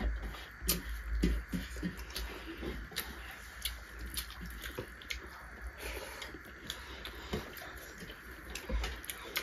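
Mukbang eating sounds: fingers mixing rice and curry on metal plates, with chewing and wet mouth clicks. They come as irregular soft clicks over a faint steady hiss.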